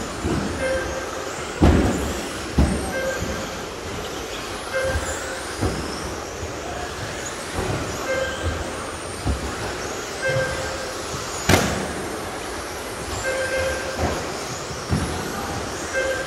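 Electric radio-controlled racing trucks running laps on a carpet track, their motors whining up and down in pitch, with repeated thumps from landings and knocks against the track edges and one sharp crack about eleven and a half seconds in. Short beeps recur at irregular intervals.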